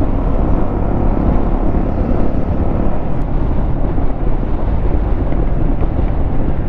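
A motorcycle riding at a steady speed: wind rush over the microphone and road noise, with the engine running steadily underneath.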